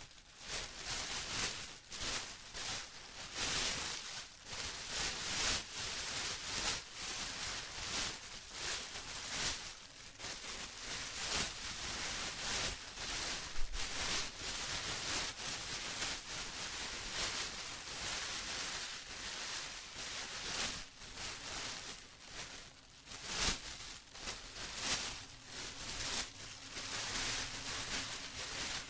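Plastic rustling and crinkling in uneven, irregular swells, crisp and hissy with many small crackles.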